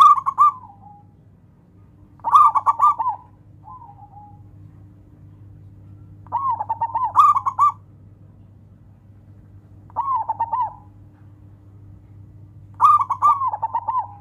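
Zebra dove (perkutut) cooing: five phrases of quick, rolling coos, each about a second long, a few seconds apart.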